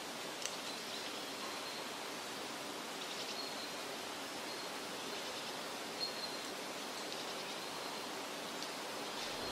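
Outdoor nature ambience: a steady rushing background with several short, high-pitched chirps at intervals.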